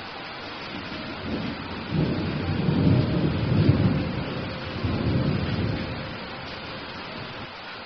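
Steady hiss of falling rain with a rolling rumble of thunder that builds about a second in, is loudest in the middle, and dies away before the end.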